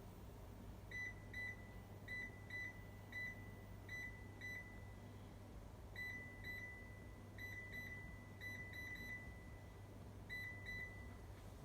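Short high beeps, all at one unchanging pitch, mostly in pairs with one run of three, about sixteen in all, over a low steady hum.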